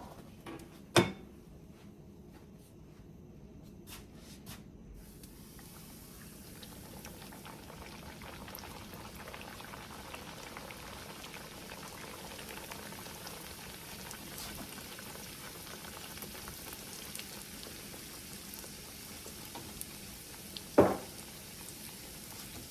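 Dough frying in hot melted shortening: a steady sizzling and bubbling that sets in about five seconds in and slowly grows. Two sharp knocks sound over it, one about a second in and one near the end.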